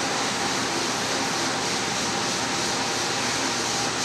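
Steady, even background hiss with no distinct events, like a running fan or air handling.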